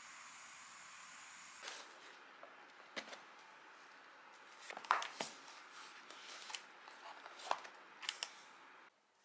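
Cardboard takeaway box being handled and opened on a table: scattered taps, knocks and paper rustles, the loudest about five seconds in. A steady hiss in the first second and a half gives way to these when they begin.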